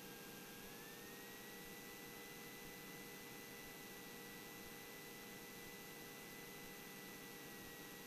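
Faint steady hiss with a thin, high-pitched electrical whine that steps up slightly in pitch about a second in, and a faint hum under it: line noise on the cockpit intercom audio, with no engine sound coming through.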